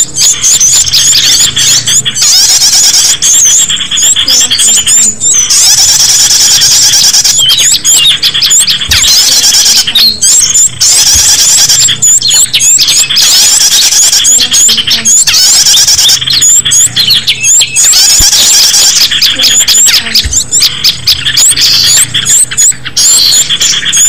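Small-bird lure track: a dense, continuous mass of rapid high-pitched chirps and squealing calls from many small songbirds at once, played loud.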